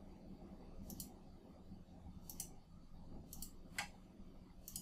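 Faint computer mouse clicks: about five sharp clicks spread over the few seconds, several of them doubled as press and release.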